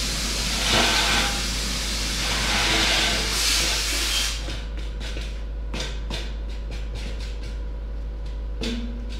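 A loud steady hiss for about the first four seconds, which then cuts off, followed by a run of short metallic clanks and knocks as an engine hanging on chains is set down onto a welded steel transport stand.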